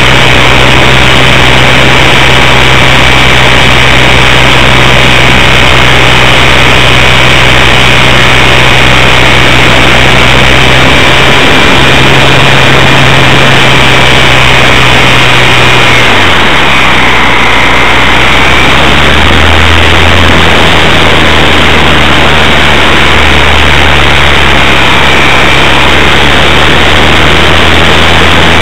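Electric motor and propeller of an RC Super Cub LP plane heard in flight from its onboard camera, a steady whine over a loud, even rush of air. A little past halfway the pitch drops as the throttle is eased back, then holds at the lower speed.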